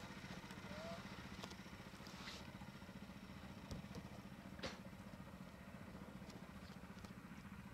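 Small outboard motor running steadily at low speed, faint, with a few light clicks over it.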